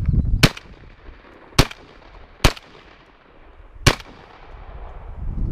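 Shotgun firing at a flying teal: four sharp reports in about three and a half seconds, the first the loudest, each with a short echo.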